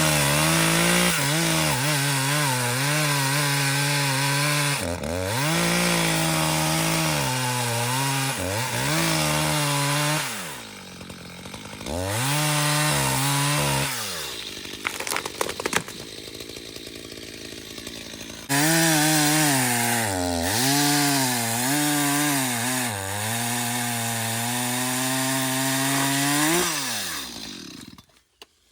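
Two-stroke chainsaw cutting wood at high revs, its pitch dipping again and again as the chain bites into the cut. About ten seconds in it drops to a lower, quieter run for several seconds with a few sharp clicks, then runs hard again before its pitch falls and it stops near the end.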